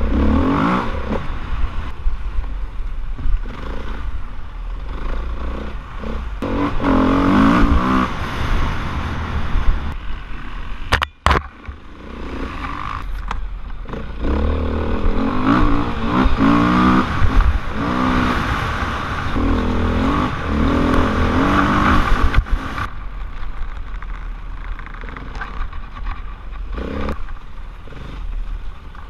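Dirt bike engine at race pace, heard from the rider's helmet, revving up and dropping back again and again as the rider rides and shifts. The sound cuts out for a moment about eleven seconds in.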